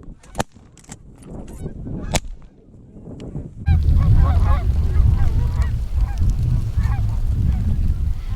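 Canada geese honking, with two sharp shotgun shots in the first couple of seconds. At about four seconds in, heavy wind noise on the microphone comes in under repeated honks.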